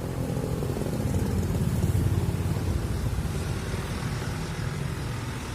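A motor vehicle's engine running with a steady low rumble, a little louder about two seconds in.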